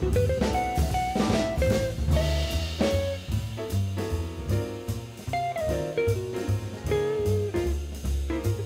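Background music in a jazzy style, with bass, guitar and a drum kit keeping a steady beat.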